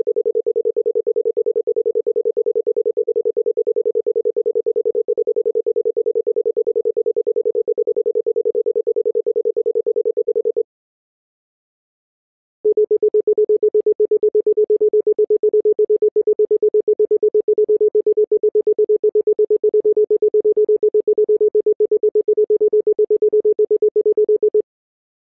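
Bahraini telephone call-progress tones: the intercept tone, a low single tone with a fast flutter, stops about eleven seconds in. After a two-second gap the route tone, a similar slightly lower tone, sounds for about twelve seconds and stops near the end.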